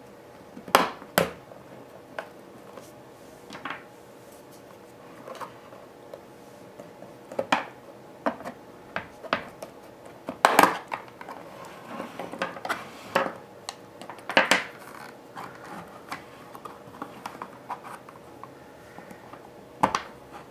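Snap-fit plastic clips of a Western Digital Elements external hard drive case cracking loose as the cover is pried off with a plastic pry tool. It comes as a string of sharp, irregular clicks and snaps, the loudest about halfway through, with plastic scraping on plastic in between.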